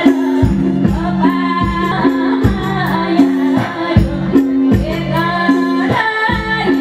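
A woman singing a Nepali folk song in an old traditional melody, over a live band with held keyboard notes and recurring drum strokes.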